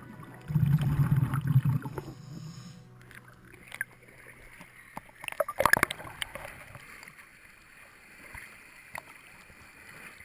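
Water sounds heard through a waterproof camera housing. A loud, muffled rush of scuba exhaust bubbles comes about half a second in and lasts two seconds. After it comes fainter water sloshing against the housing, with a burst of sharp crackles near the middle and a few scattered clicks.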